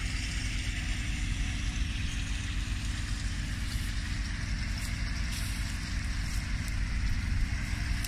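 An engine running steadily at a constant speed: a low rumble with a faint steady hum.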